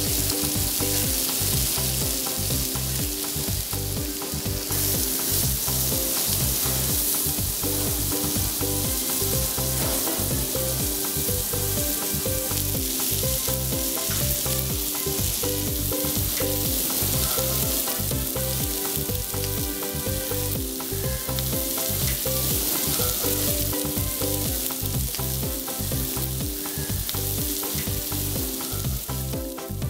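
Steaks sizzling as they fry on a hot ridged griddle pan, a steady spitting hiss, over a music track with a steady beat.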